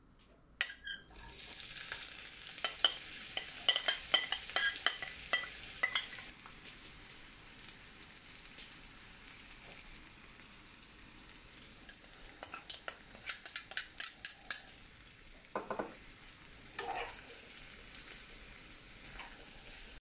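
Chopped onions dropping into hot oil in a frying pan and sizzling, with dense crackling for the first few seconds, then settling to a steadier, quieter sizzle. Later, clicks and scrapes of a metal spoon stirring the onions in the pan.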